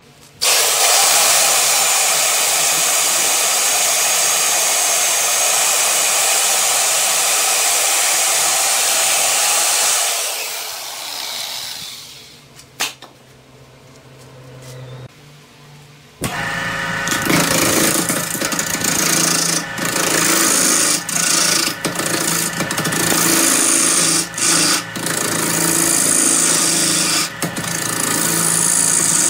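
Woodworking power tools on wood: a steady, loud hiss for about ten seconds that fades away, then after a pause a wood lathe spinning with a tool cutting the turning wood, broken by short gaps as the cut stops and starts.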